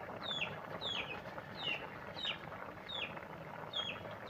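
A chick peeping over and over, about two short falling peeps a second.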